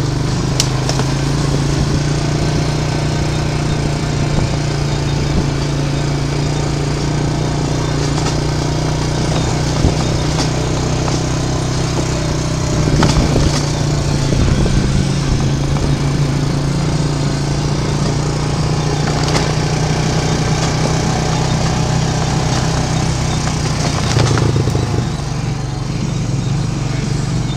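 ATV engine running at a steady pitch while riding along a dirt trail, with occasional short knocks and rattles.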